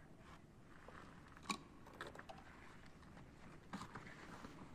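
Faint handling noise: a few light knocks and clicks of gray PVC pipe and fittings being handled and set in place, the sharpest about a second and a half in.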